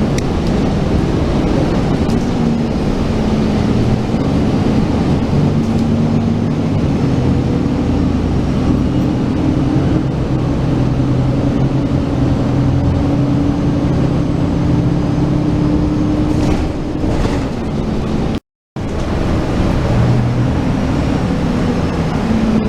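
Steady motor-vehicle running and road noise, with a low engine hum that drifts slowly up and down in pitch. The sound cuts out completely for a moment about eighteen seconds in.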